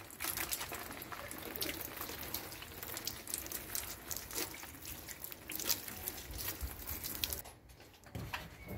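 Water from a garden hose spraying and splashing onto plant leaves, a steady hiss with spattering, which stops about seven and a half seconds in.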